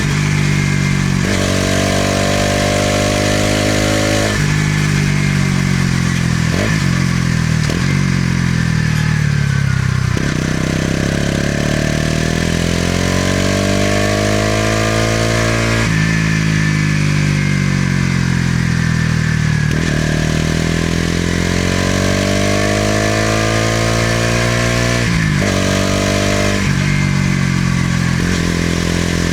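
Bajaj Pulsar NS200's single-cylinder engine running through its exhaust on the move, its pitch rising and falling with the throttle. Several abrupt jumps in pitch mark gear changes.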